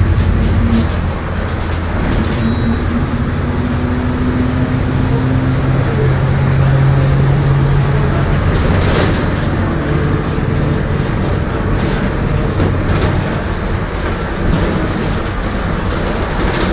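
Mercedes-Benz OF-1721 bus running at low engine speed, a steady low drone with a differential growl riding on it: a tonal hum that swells about a third of the way in and then fades. The growl is the sign of a worn differential. A few light rattles are heard throughout.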